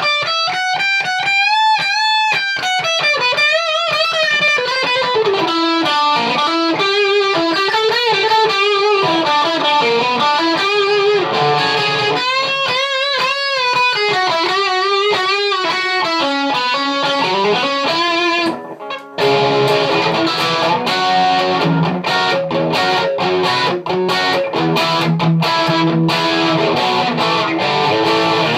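Self-assembled Stratocaster-style electric guitar played through an amp. It starts with single-note lead lines with wide bends and vibrato. After a short break about two-thirds of the way in, it switches to dense, fast-picked chordal playing.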